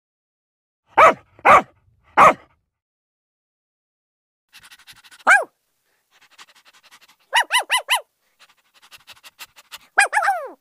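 A series of dog barks of different kinds. Three loud barks come in the first couple of seconds, then a single bark dropping in pitch about five seconds in, a quick run of five barks between seven and eight seconds, and a final falling bark near the end, with faint rapid clicking between the groups.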